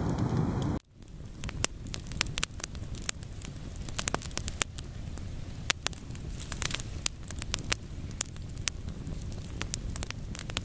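Wood campfire crackling, with many irregular sharp pops and snaps over a low, steady hiss. Just under a second in, a louder steady rushing noise cuts off abruptly before the crackling takes over.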